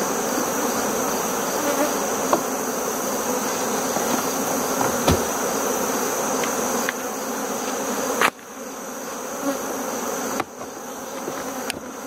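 Honeybees buzzing in a dense, steady hum around an opened hive, with a few brief knocks; the hum drops quieter about eight seconds in.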